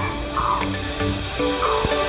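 Background music with a regular percussive beat and held melody notes that step from one pitch to the next.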